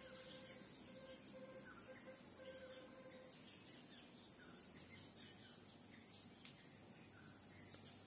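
Steady high-pitched drone of insects, with faint short bird chirps scattered through it.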